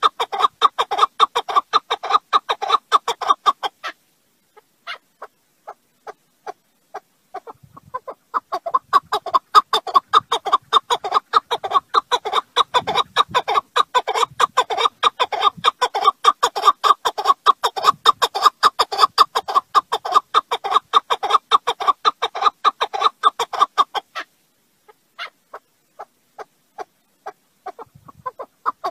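Partridge calling: long runs of rapid, repeated chuck notes, about eight a second. The calling thins to sparse single notes about four seconds in and again a few seconds before the end, then starts back up.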